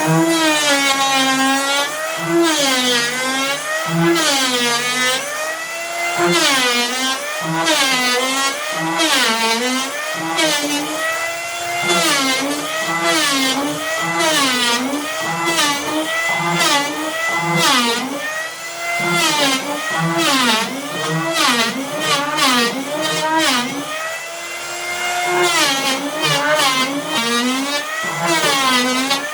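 Background music: a melodic lead line that glides up and down in pitch, with short percussive hits.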